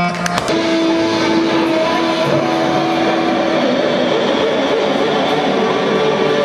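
Psychedelic rock band playing live: loud, distorted electric guitars in a dense, steady wash of sound with long held notes, over drums.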